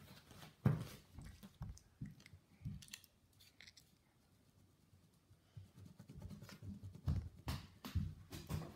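A pen drawing on paper: a series of short strokes and taps, with a few soft thumps mixed in. A quieter stretch falls midway.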